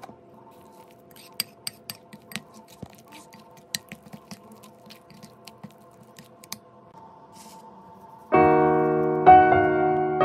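A metal spoon clicking and scraping irregularly against a bowl while stirring a thick paste, under faint held tones. About eight seconds in, loud piano music starts and covers it.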